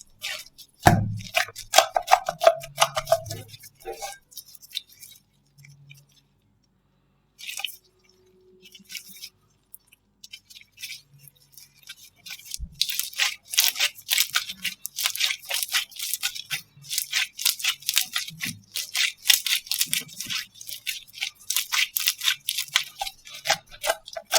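Slime being worked by hand: a run of small sticky clicks and crackles, sparse at first with a short pause, then dense and continuous through the second half.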